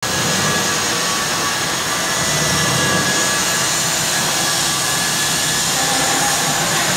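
Steady machine noise: a loud, even whirring hiss with a low hum under it and a few faint high whines, with no change in pitch or level.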